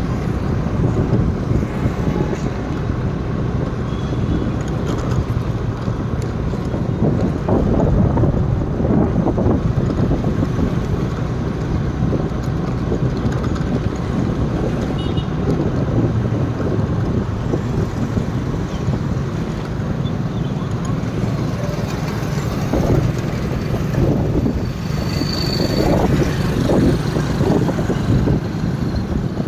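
Steady vehicle and road noise with a low rumble, heard from a vehicle moving along a city road. A brief high-pitched tone sounds near the end.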